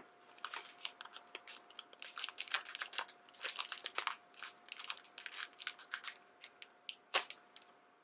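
Small plastic blind bag being torn open and crinkled by hand as the toy figure is worked out, a run of irregular crackles with one sharper crackle near the end.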